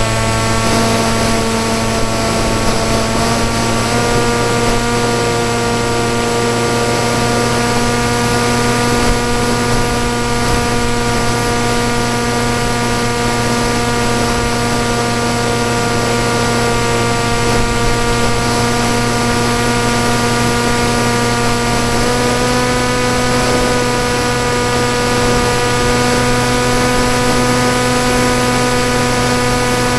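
Electric motor and propeller of a PopWing foam flying wing running in flight: a steady whine over broad wind hiss. The whine steps up in pitch about four seconds in and again near the end, as the throttle changes.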